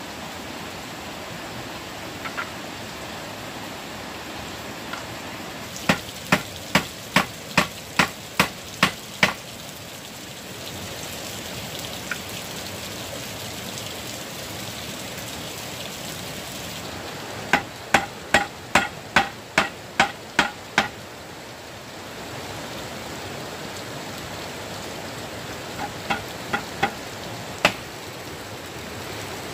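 Hammer blows on wood, as in nailing a shelf together: two runs of about nine strikes each at a steady pace of two to three a second, then a few lighter taps near the end. A steady hiss runs underneath.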